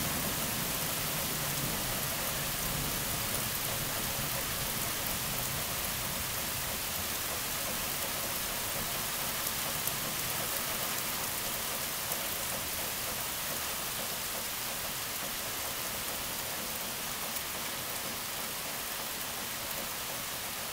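Heavy thunderstorm rain falling steadily with an even hiss. A low rumble of thunder dies away over the first few seconds.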